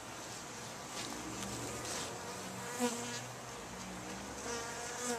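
Italian honey bees buzzing over the open comb of a top-bar hive: a steady hum of the colony, with brief louder buzzes now and then, the loudest a little under three seconds in.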